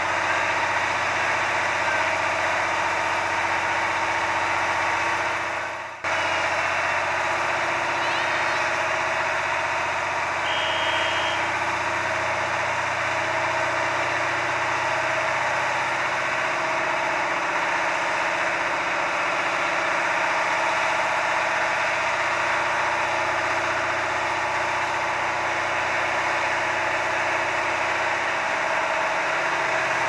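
KiHa 183 series diesel railcars idling at a standstill, a steady engine drone with several held tones. The sound drops away briefly about six seconds in, and a short high tone sounds about ten seconds in.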